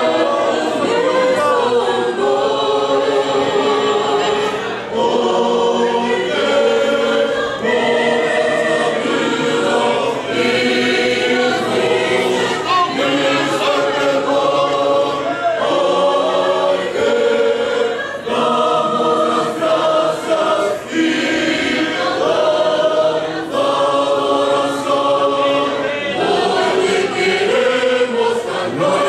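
Large church choir singing a hymn together in held notes, phrase after phrase with short breaks between them.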